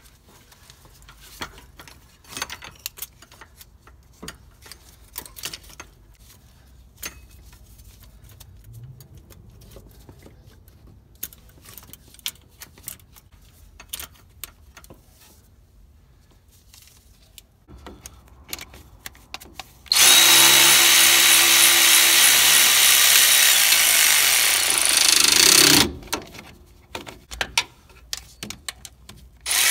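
Scattered light metal clicks and knocks as a vacuum pump is set on the engine and its bolts started by hand, then about 20 seconds in a cordless power tool runs steadily for about six seconds, driving in the pump's mounting bolts, and winds down in pitch as it stops.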